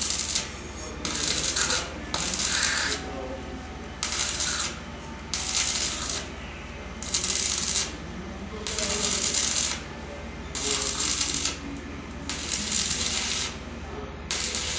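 Stick arc welding on thin 0.5 mm square steel tubing: the arc crackles and sizzles in short bursts about once a second, with brief breaks between them. It is welded in stops and starts to keep from burning holes through the thin wall.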